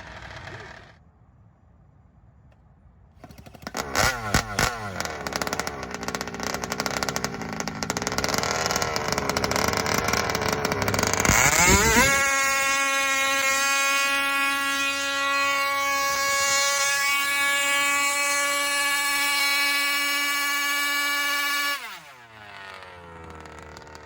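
Gas-powered two-stroke RC car engine firing up about three seconds in and running unevenly. It then revs to a steady high-pitched wide-open scream held for about ten seconds, and the pitch falls away sharply near the end.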